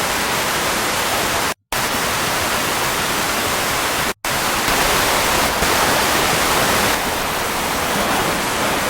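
A loud, steady roaring hiss of storm noise with no distinct pitch, from raw storm footage. It cuts out abruptly twice, about a second and a half in and again about four seconds in, and is slightly louder after the second cut.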